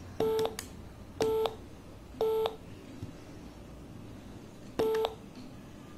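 Speaker of a kit-built electronic reaction game beeping: three short identical tones about a second apart, the game's start signal, then a fourth tone about two and a half seconds later, the tone for a successful button press.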